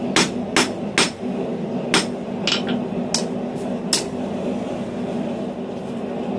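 Hand hammer striking a hot steel bar on an anvil: a run of about nine sharp metal-on-metal blows, roughly two a second, that stops about four seconds in. A steady low hum runs underneath.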